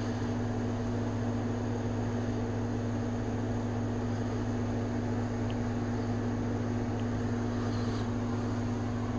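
Steady background hum with a constant low drone and an even hiss, unchanging throughout.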